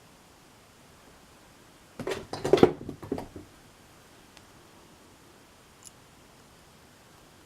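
Small metal lock parts and tools clinking and rattling in a quick cluster about two seconds in, lasting just over a second, followed by a few faint single ticks, as the lock is being reassembled.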